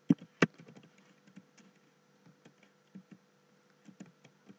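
Computer keyboard keys being typed one at a time: two sharp keystrokes near the start, then a few fainter, spaced-out ones.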